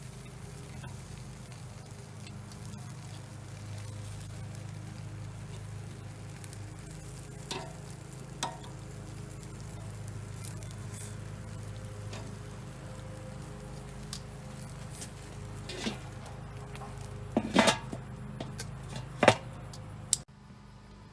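Chicken drumsticks sizzling on the grate of a charcoal kettle grill. Scattered sharp clicks sound over it, the loudest ones close together about two-thirds of the way through and another near the end.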